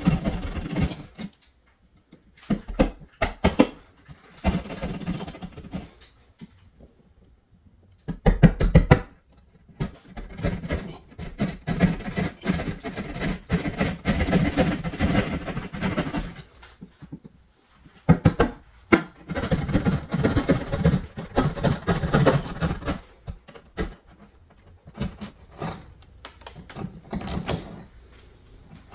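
Drywall being cut out for an electrical switch box, in bursts of sawing that stop and start over several seconds at a time.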